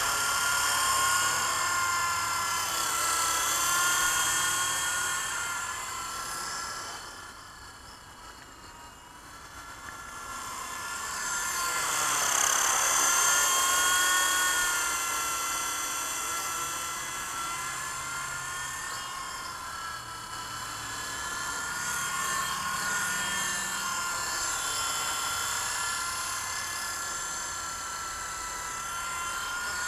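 WLtoys V912 RC helicopter's electric motor and rotor whining in flight, the pitch wavering up and down with the throttle. The whine fades down about a quarter of the way in as the helicopter moves off, then is loudest a few seconds later as it passes close overhead.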